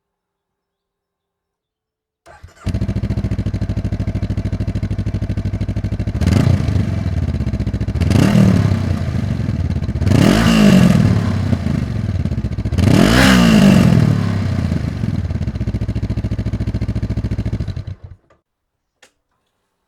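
Honda CB500X's parallel-twin engine, most likely through its stock exhaust, starting and settling to a steady idle. It is revved four times, each rev rising and falling back, then idles again and is switched off.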